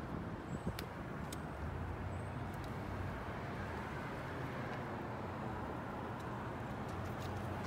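Outdoor street ambience: a steady low hum of distant traffic, with a few faint clicks in the first few seconds.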